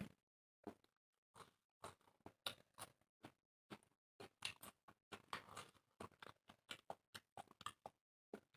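Quiet close-up eating sounds of people eating roti by hand: chewing and mouth smacking in a string of short, irregular clicks, with fingers tearing the bread.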